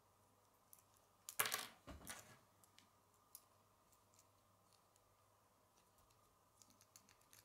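Plastic K'nex pieces clicking against each other as they are handled and fitted together: a quick clatter of sharp clicks about a second and a half in, then a few faint clicks near the end.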